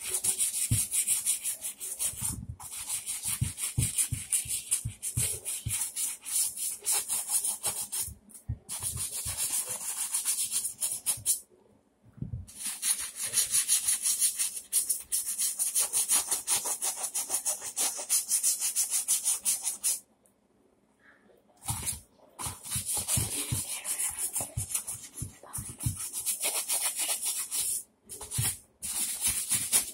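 Brush scrubbing a Huarache sneaker in quick back-and-forth strokes to clean off stains. The scrubbing stops briefly about halfway through and again about two-thirds of the way in.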